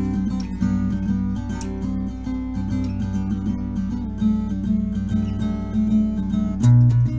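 Guitar music: a tune played on an Ibanez guitar, with notes changing steadily and a louder, deeper note coming in near the end.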